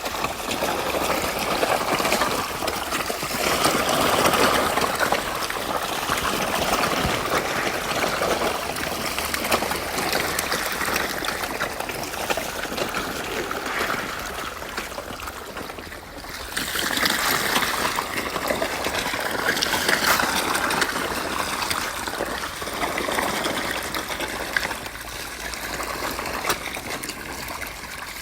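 Water splashing and trickling continuously, with a brief lull a little past halfway.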